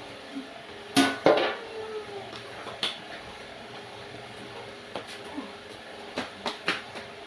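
Large metal cooking pot and its lid clanking as they are handled: two loud clatters about a second in as the lid comes off and is set down, single knocks a little later, then several quick clanks near the end as the pot is lifted.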